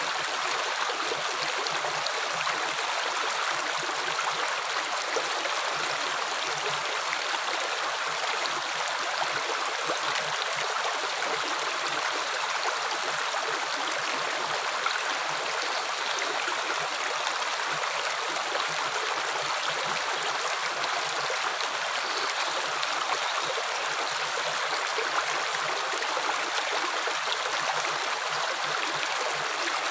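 Water flowing steadily: an even, unbroken rushing and trickling.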